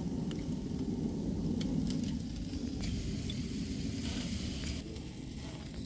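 Food sizzling on a barbecue grill over a steady low rumble, with a few faint clicks and a brief louder hiss about four seconds in.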